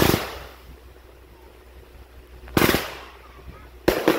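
Aerial fireworks going off: four loud bangs, one at the start, one about two and a half seconds in, and two in quick succession near the end, each trailing off in a short echo.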